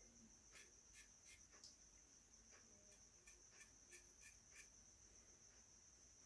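Near silence: faint room tone with a steady high-pitched whine and a few faint, scattered ticks.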